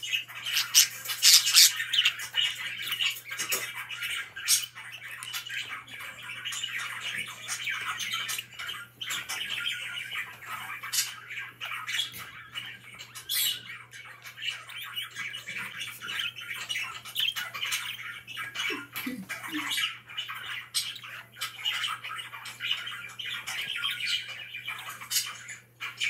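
Pet budgerigars warbling and chattering without pause, with many sharp chirps and squawks mixed in, loudest about a second in.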